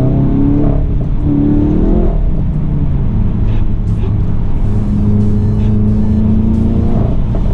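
Turbocharged four-cylinder engine of an APR Stage 2 tuned MK7 Volkswagen GTI, heard from inside the cabin under hard driving. It climbs in revs for about two seconds, breaks off around a gear change, then settles into a steady drone before rising again near the end.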